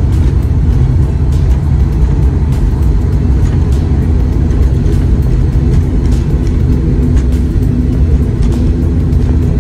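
Turboprop airliner's engines and propellers droning steadily, heard inside the cabin as the plane rolls on the runway after landing.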